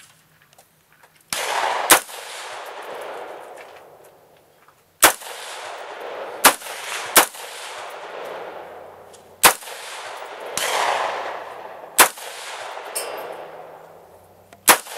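Yankee Hill Machine YHM-15 AR-15 carbine firing single semi-automatic shots at an uneven pace, about eight in all. Each sharp report is followed by a long echoing tail.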